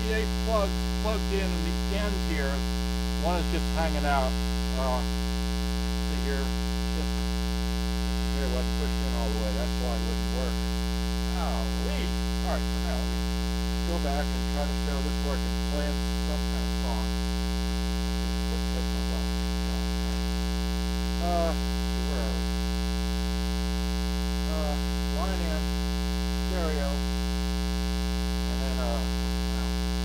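Steady 60 Hz mains hum with its overtones, induced into the recording by the camera's AC adapter: a ground-loop fault. Faint wavering tones come and go over it.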